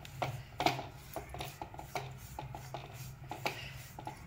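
Silicone spatula scraping and tapping against a metal frying pan while stirring semolina roasting in ghee, in irregular strokes, over a low steady hum.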